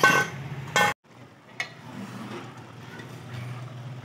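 A steel spoon knocks and scrapes against an aluminium cooking pan, two sharp strokes in the first second. The sound then cuts off abruptly and a quieter steady hiss with a low hum remains.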